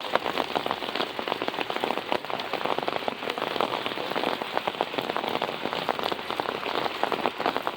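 Steady rain falling, a dense patter of individual drop hits over an even hiss.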